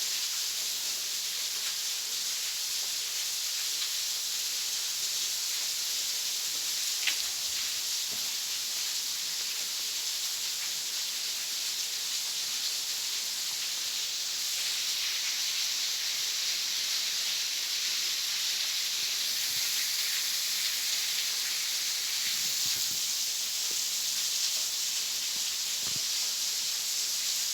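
Waterfall pouring steadily inside a cave, an even, high hiss of falling water.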